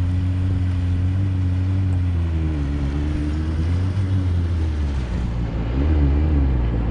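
Rebuilt GTX jet ski engine running under way, its pitch wavering up and down a little twice as the throttle changes, over wind and water noise.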